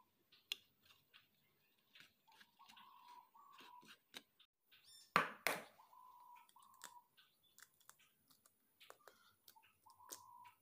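Faint clicks and crumbly rustles of hands handling bread and an egg over plastic bowls, with a sharp double knock about five seconds in. A bird's short two-note chirp repeats every three to four seconds.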